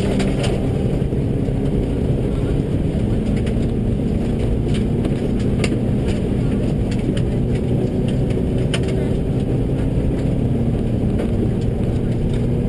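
Subaru rally car at full speed on a gravel forest stage: the engine running hard under load over steady tyre and road noise, with scattered sharp clicks of gravel striking the car. Two in-car recordings of the same car on two passes of the stage are layered, one in each stereo channel.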